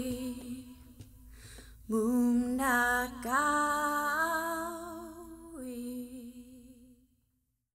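A woman singing a Nisenan song alone, with no instruments, in long held notes. A note fades away at the start; after a short pause she sings a last phrase that fades out near the end.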